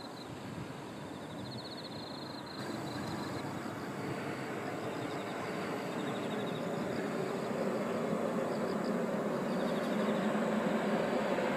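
An approaching Shinkansen made up of an E5-series and an E6-series train coupled together (Hayabusa–Komachi), its rushing rail and air noise growing steadily louder from about two and a half seconds in. Insects chirp in rhythmic pulses over it.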